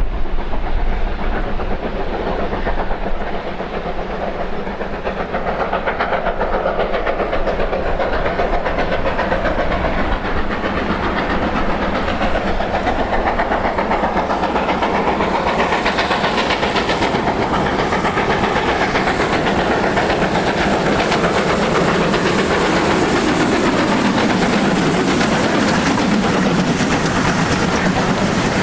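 Two GWR 4-6-0 steam locomotives double-heading a passenger train, their exhaust getting louder as they approach and pass. Then the coaches roll by with their wheels clattering over the rail joints.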